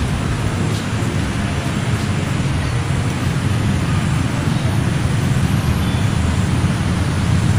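Steady low rumble of distant road traffic, an even noise with no distinct events.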